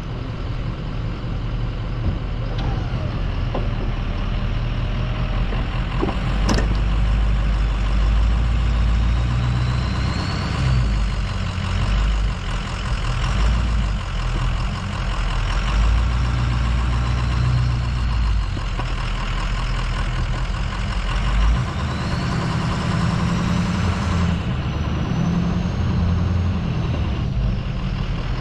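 Ford F-250's 6.0 L Power Stroke V8 turbodiesel running as the truck pushes snow with its plow, its low rumble swelling and easing several times under the changing load. A faint whine rises and falls above it a few times, and there is a sharp click about six seconds in.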